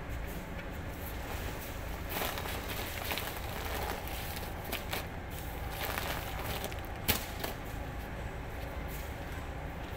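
Steady low rumble of warehouse background noise, with scattered knocks and clatters and one sharp click a little after seven seconds in.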